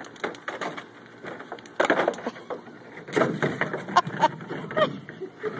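Hard plastic kiddie pool knocking and scraping on wet concrete as a puppy scrambles in it and tips it over onto itself: an irregular run of clattering knocks and scrapes, loudest about two seconds in and again from about three seconds, with a few short high squeaks.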